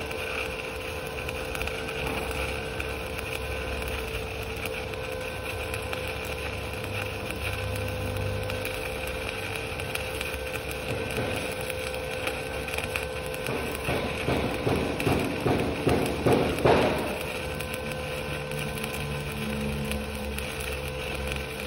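Stick-welding (SMAW) arc from a 2.6 mm LB52-18 low-hydrogen electrode at 100–120 A, crackling and hissing steadily while laying a vertical fill pass. The crackle grows louder and more uneven for a few seconds about two-thirds of the way through.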